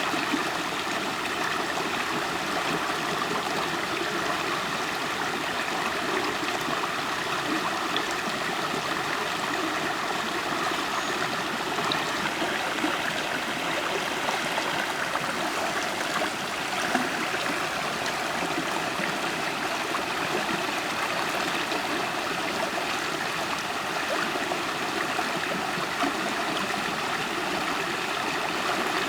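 River water flowing steadily, a continuous gurgling rush of a stream over rocks.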